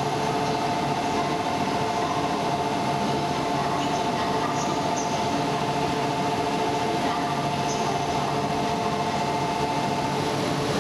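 Platform sound of an E4 series Max Shinkansen standing at the station: a steady electrical hum with two held tones that stop about ten seconds in.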